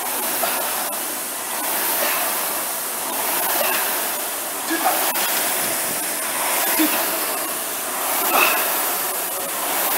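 Air rowing machine's flywheel fan whooshing, the rush of air swelling with each hard pull and easing on the recovery, about one stroke every one and a half seconds.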